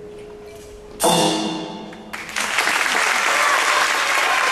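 A loud orchestral chord strikes about a second in and rings away, the closing chord of the dance. About a second later audience applause breaks out and carries on steadily.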